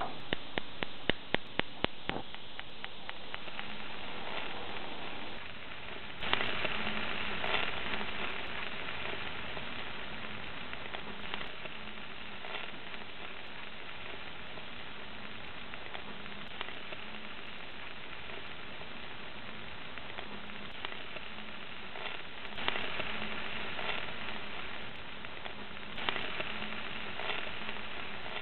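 Gas grill's push-button igniter clicking rapidly for about two seconds, then bell peppers sizzling steadily on the hot grate, the sizzle swelling briefly a few times.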